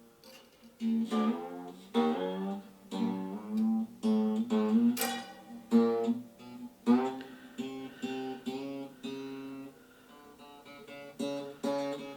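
Acoustic guitar being plucked: a run of single notes and small chords, each ringing on briefly, with a quieter gap about two thirds of the way through.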